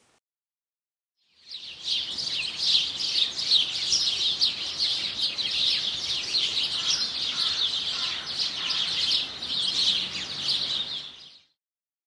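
A dense chorus of small songbirds chirping, many quick overlapping calls at once. It fades in about a second and a half in and fades out near the end.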